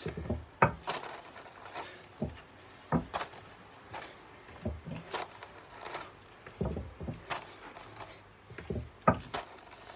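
Footsteps during alternating step-back lunges: trainers come down on loose gravel and back onto a raised stone slab, a steady run of short knocks and crunches about two a second.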